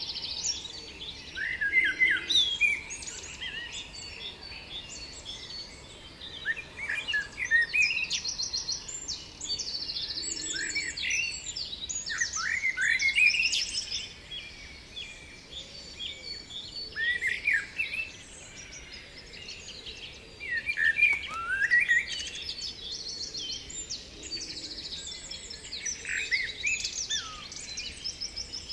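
Birdsong: several small birds chirping and singing at once, with quick falling whistled notes and fast high trills overlapping throughout.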